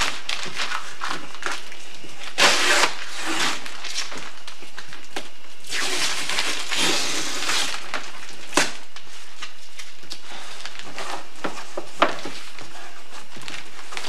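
Large cardboard box being opened by hand: scraping and rustling of the cardboard flaps in two bursts, with a couple of sharp knocks later on.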